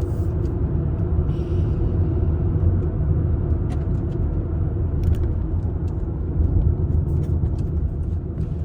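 Car interior while driving: a steady low rumble of engine and tyre noise, with a few faint clicks.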